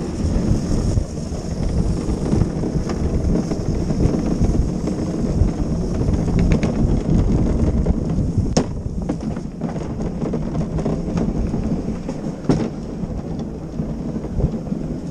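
Luge cart rolling fast down a paved track, a steady rough rumble from its wheels with a couple of sharp knocks, easing a little near the end.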